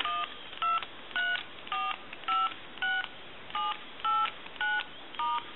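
Touch-tone keypad of an AT&T 210 Trimline telephone sending DTMF digits: about ten short two-pitch beeps, roughly two a second, as a number is dialed to check that each key sends the right tones.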